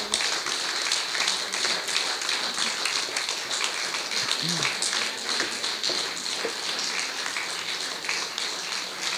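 Audience applauding steadily, with a brief bit of voice about halfway through.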